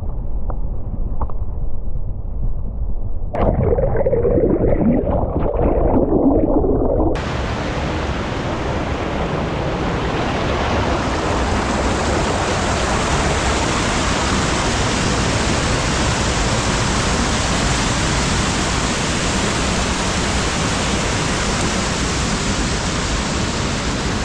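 Steady rush of flowing water. For the first few seconds it is muffled and low, then from about seven seconds in it switches suddenly to a full, even hiss.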